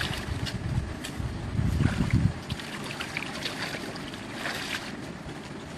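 Water and wind noise, with a stronger low rumble about two seconds in.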